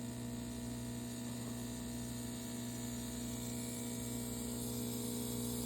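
DeLonghi Magnifica espresso machine running, with a steady hum over a steady hiss; the machine is straining while hot water sprays from a leak at its heating element, which the owner suspects is cracked.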